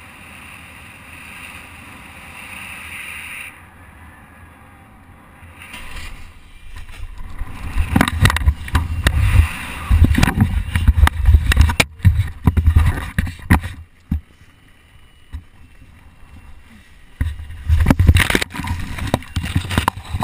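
Wind rushing and buffeting over a body-worn camera's microphone during a descent from the air, coming in loud irregular gusts from about six seconds in and again near the end, with crackling and rustling as the person comes down into tree branches and leaves.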